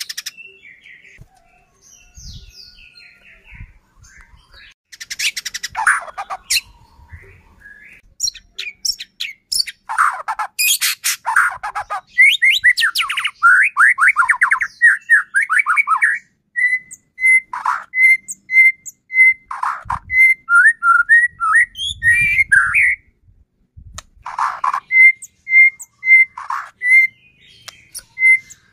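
White-rumped shama (murai batu) singing a loud, varied song: quick whistled phrases, fast chattering trills, and runs of short notes repeated on one pitch about twice a second. It is the full 'gacor' song used as a lure to set other shamas singing.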